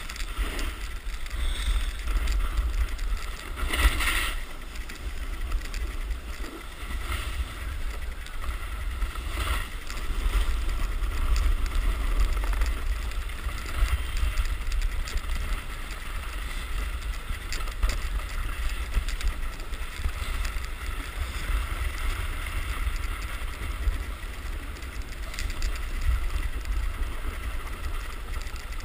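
Wind buffeting the microphone of a camera worn while riding down a groomed ski run, with a steady scrape of sliding over packed snow. Two brief louder bumps come about four and nine seconds in.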